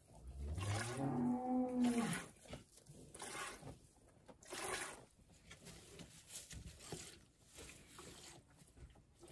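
A single cattle moo, about two seconds long, rising in pitch and then falling away.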